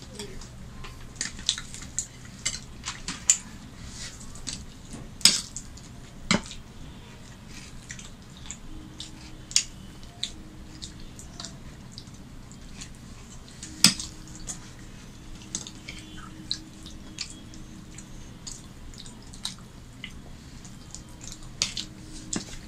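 Spoon and fingers clinking against metal bowls and a glass plate while eating, in scattered light clicks with two sharper clinks about five and fourteen seconds in. A low steady hum underneath.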